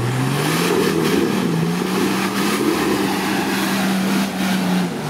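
Nissan Patrol Y60's diesel engine revving up and held at high revs under hard load as the 4x4 claws up a steep muddy slope. The note drops back right at the end.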